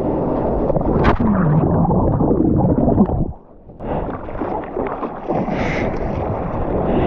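Water rushing and splashing close around a surfboard-mounted action camera, with wind buffeting the microphone, as the surfer comes off the whitewash and paddles. A little past the middle the sound drops sharply and goes muffled for about half a second.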